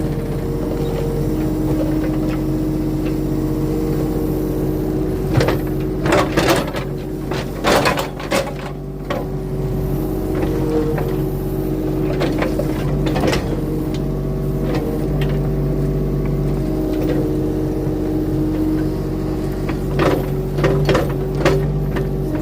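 Compact diesel earthmoving machine running steadily, its pitch shifting slightly as the load changes while levelling dirt. Sharp clanks and knocks come in a cluster about six to eight seconds in and again near the end.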